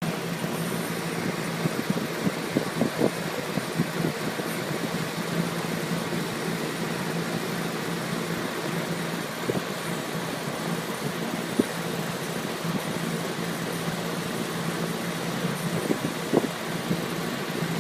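Central air conditioning system running in cooling mode: a steady rush of air with a constant low hum and a few light clicks.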